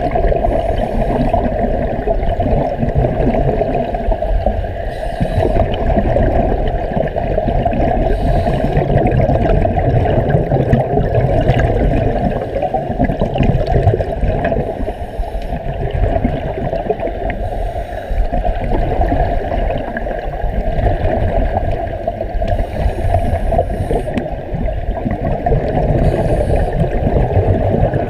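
Underwater sound through a waterproof camera housing: a steady muffled rush and rumble of moving water, with a faint hiss of exhaled scuba bubbles about every three to four seconds.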